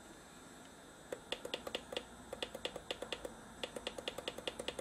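Plastic push-buttons on a LANC service jig clicking in rapid succession, several presses a second, starting about a second in. The buttons are being pressed over and over to step a service-mode data value down to 0.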